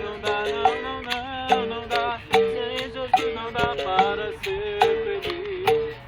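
Live acoustic Brazilian worship song: acoustic guitar, berimbau and agogô bell playing with voices singing, sharp percussive strikes keeping a steady beat.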